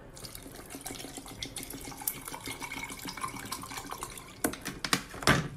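Coffee poured from a bottle into a glass jar of ice, a steady splashing pour, with a few sharp clicks near the end.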